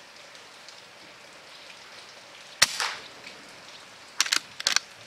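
Rain pattering steadily. About two and a half seconds in comes a single sharp crack from a .22 BSA Super 10 air rifle shot, with a short tail. A quick cluster of sharp clicks follows about a second and a half later.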